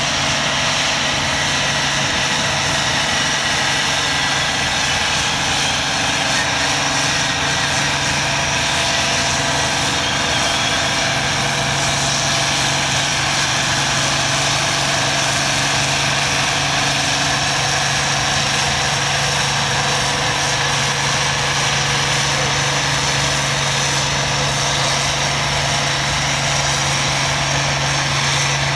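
Farm tractor engine running hard at a steady speed while pulling a weight-transfer sled: an even, unbroken drone that does not change in pitch or loudness.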